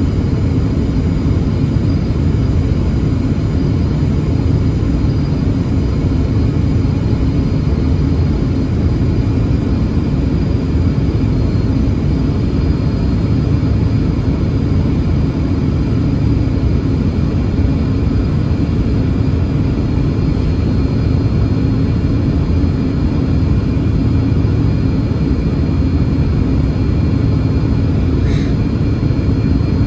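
Steady drone of a Yakovlev Yak-40's three tail-mounted Ivchenko AI-25 turbofan engines heard inside the passenger cabin, a constant low rumble with a faint high whine over it. A brief faint click near the end.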